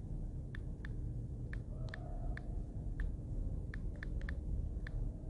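Clicks from a phone's on-screen keyboard as a password is typed in, about ten short, sharp key-press clicks at an uneven typing pace, over a steady low background rumble.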